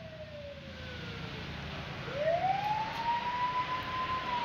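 A siren wailing: one tone slides down, then about halfway through rises slowly and holds high, growing louder.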